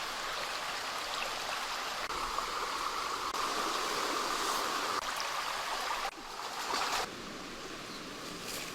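Steady rush of running water, like a stream, changing abruptly about six seconds in and again a second later.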